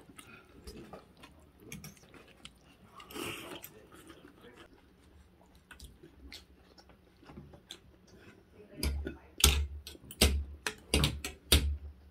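People eating noodle soup: chewing, with light clicks of forks and spoons against ceramic bowls. A run of louder knocks and clatter comes in the last few seconds.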